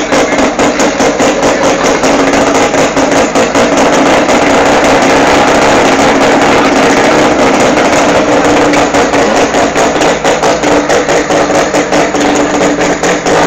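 Race car engine running very loud with a rapid pulsing beat, evening out into a steadier sound through the middle before pulsing again near the end.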